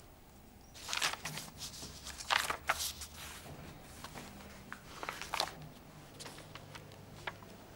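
Soft rustling and shuffling with scattered clicks, starting about a second in and dying away after about five seconds, over a faint low hum of room tone.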